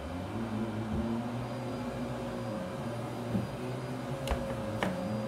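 A steady machine hum like a fan or air conditioner, with a constant tone running through it, and two light taps about half a second apart near the end.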